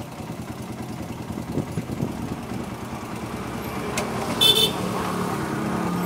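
A motorcycle engine idling steadily, with one short, high horn toot a little past halfway.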